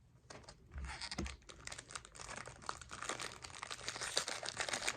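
Rapid light crinkling and clicking of baseball card packs and cards being handled, quiet at first and growing busier after about a second.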